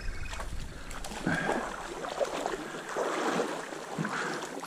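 Trout stream water rippling and splashing in uneven swells.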